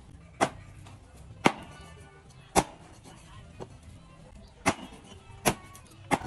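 Heavy cleaver chopping raw duck meat on a wooden chopping block: six sharp thwacks at irregular intervals, about a second apart, with the last two coming closer together near the end.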